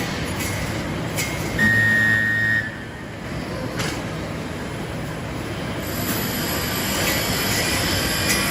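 Steel grating resistance-welding machine running, with a steady mechanical noise and a few sharp knocks. A loud electric buzz, a low hum with a high steady tone on top, lasts about a second, near 2 seconds in.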